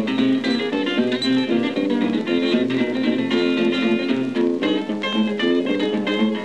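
Background music played on guitar, a quick run of picked notes.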